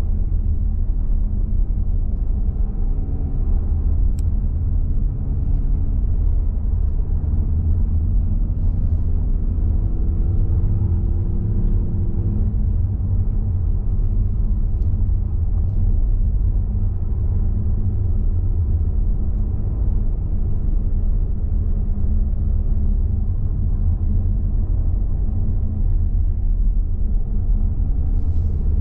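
Car driving on a snow-packed road, heard from inside the cabin: a steady low engine and road rumble, with the engine note drifting a little up and down.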